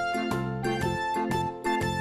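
Background music: a light plucked-string melody over bass notes, with a new note every quarter to half second.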